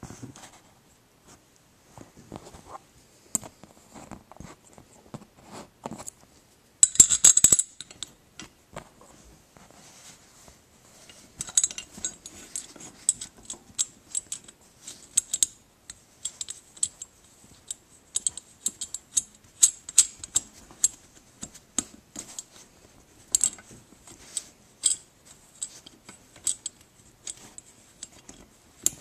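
Metal antenna-mount bracket and mast pieces handled by hand: irregular clicks, clinks and light rattles, with a louder clatter about seven seconds in and frequent ticking through the second half.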